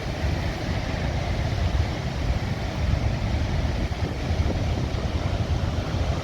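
Heavy storm surf breaking on a rocky coast: a steady, deep rumble of waves, with wind buffeting the microphone.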